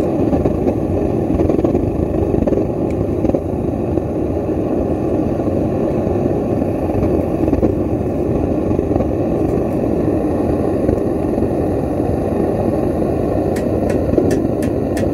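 Gas torch firing steadily into a small crucible furnace that is melting metal: an even, deep rush of flame. Near the end a run of faint quick ticks, about five a second, sits over it.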